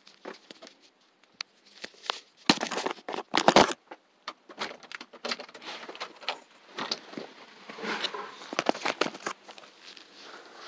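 Handling noise on a phone microphone: rustling and scraping with scattered clicks and knocks, loudest in a burst of rustling about two and a half to four seconds in.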